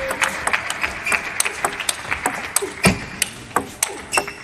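Table tennis ball clicking off the bats and table in a fast rally, with clapping in the first half that fades out.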